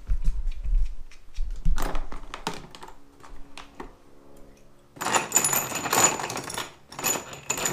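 Small steel parts clicking and clinking while the shift detent ball bearings are handled and fitted into a transmission case, with a denser jingling rattle of loose metal parts about five seconds in.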